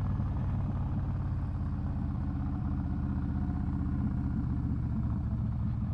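A vehicle's engine running steadily while cruising, a low, even rumble.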